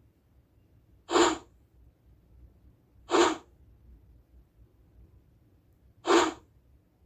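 A short whoosh sound effect played three times, each a brief rush of noise about a third of a second long: about a second in, at three seconds, and near the end.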